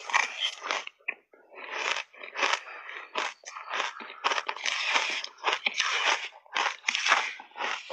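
Shaved ice coated in matcha and milk powder crunching as a big mouthful is bitten and chewed. The crunches come quick and irregular, with a short lull about a second in.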